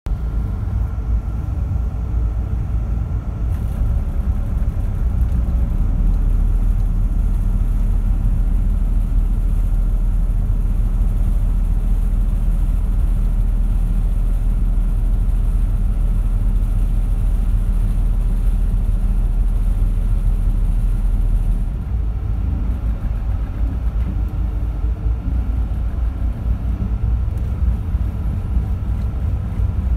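High-speed passenger boat's engines running with a steady low rumble and some hiss above it. It grows louder a few seconds in and eases back a little about three-quarters of the way through.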